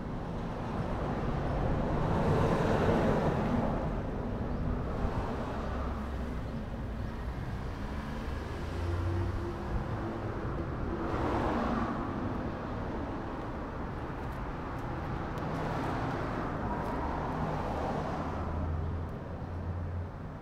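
Road traffic passing by: three vehicles rise and fade in turn, about two to four seconds in, around eleven seconds in and around sixteen to eighteen seconds in, over a steady hum.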